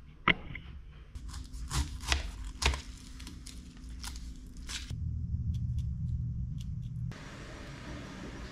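A knife cutting through a pineapple on a plastic tray, with a few sharp cutting strokes in the first three seconds. About five seconds in, a low steady hum runs for about two seconds.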